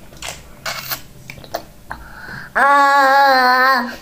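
A child drinking from a plastic water bottle, with soft sucking clicks and gulps. Then, about two and a half seconds in, a voice holds one loud, steady note for just over a second.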